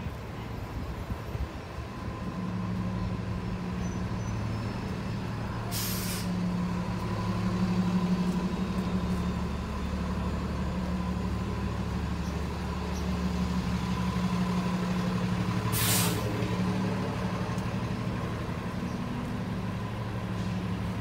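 City bus diesel engine idling with a steady low hum, with two short hisses of released air from its brakes, about six seconds in and again about sixteen seconds in.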